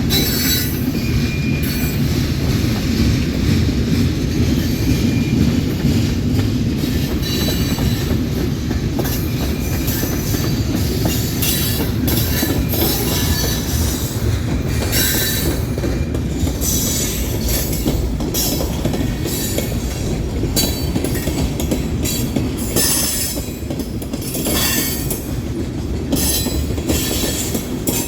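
Train cars rolling past at close range: a steady low rumble of wheels on rail, with repeated high-pitched wheel squeals and clattering throughout.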